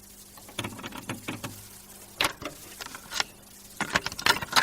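A series of irregular sharp clicks and taps, about a dozen, spaced unevenly and the loudest near the end, over a faint steady low hum.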